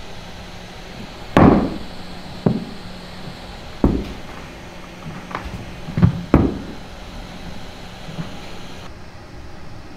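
Quadruped robot dog's feet knocking on a wooden floor as it steps about: about seven irregular knocks, the loudest about a second and a half in, over a steady low hum.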